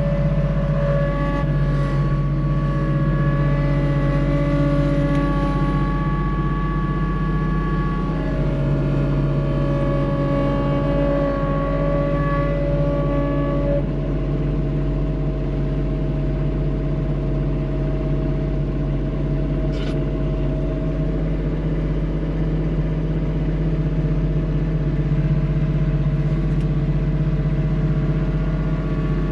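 Vehicle engine running steadily, its tone shifting a couple of times along the way, with one sharp click about two-thirds of the way through.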